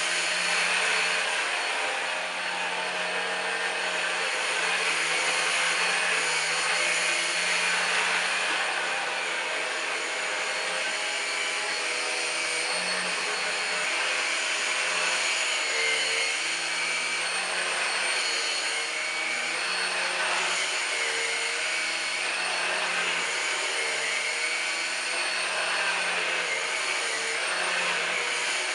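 Numatic Henry Quick HEN70 cordless stick vacuum running steadily, a continuous motor whine and airflow rush with small shifts in pitch.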